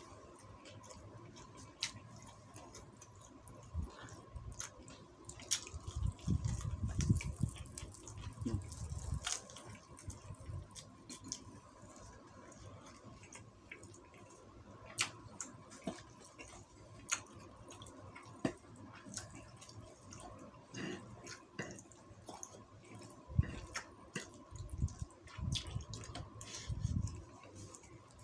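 Close-up mukbang eating sounds from nasi uduk eaten with a spoon and fork: wet chewing and mouth clicks, with scattered sharp taps of the cutlery on the plate. Low, rumbly handling or chewing noise comes through more strongly about six to nine seconds in and again near the end.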